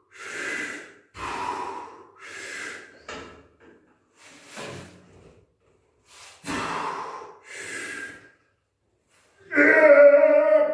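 A man breathing hard in short forceful breaths about once a second under the effort of a maximal bench press, then a loud strained grunt lasting about a second near the end as he pushes the bar.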